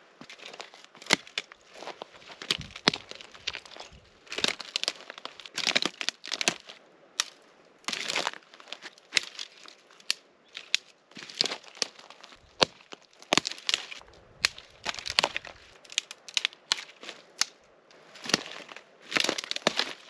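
Dry dead branches and twigs being handled and broken up on a pile: irregular brittle crackling with many sharp snaps.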